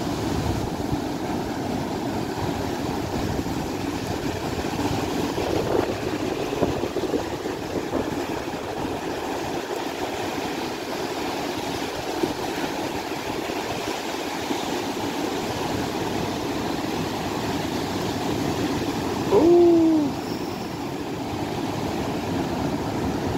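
Surf breaking and washing up a sandy beach, a steady rushing noise. About three-quarters of the way through comes one short, loud hooting call that falls slightly in pitch.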